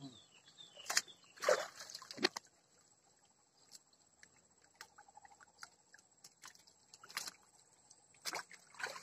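Shallow stream water sloshing and splashing around hands and a muddy tree stump being worked loose from the bank, with scattered short knocks and snaps. The louder splashes come about a second and a half in, a little after two seconds, and again about seven seconds in.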